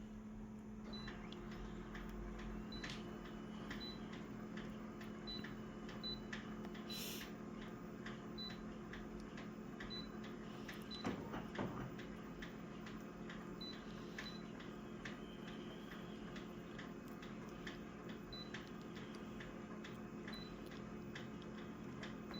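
Photocopier running quietly: a faint steady hum with scattered small clicks and short high pips, and a brief louder knock about eleven seconds in.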